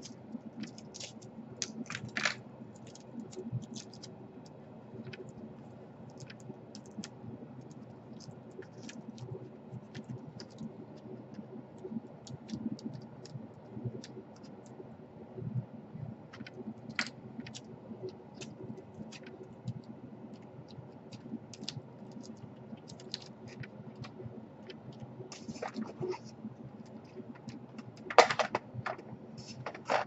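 Scattered small clicks, taps and scratches of hands and a small screwdriver working on the parts and wiring of an opened laptop, with a louder cluster of clicks near the end. A faint steady low hum runs beneath.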